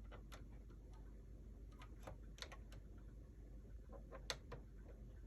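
A few light, scattered clicks, the sharpest about four seconds in, from a Sony MXD-D5C CD/MD deck that after a belt replacement will not open its CD tray or take in an MD.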